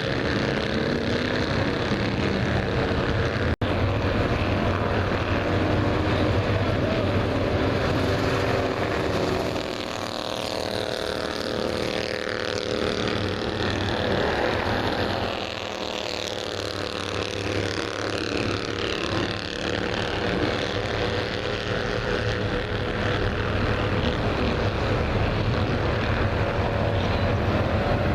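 Bandolero race car engines running on the track, their pitch rising and falling several times in the middle as the cars speed up and slow. There is a brief dropout about three and a half seconds in.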